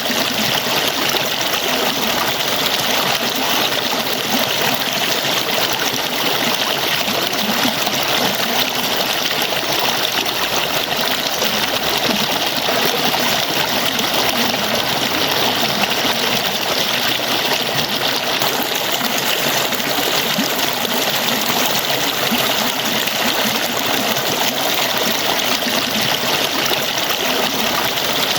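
Falling water, an even steady rush with no breaks or changes.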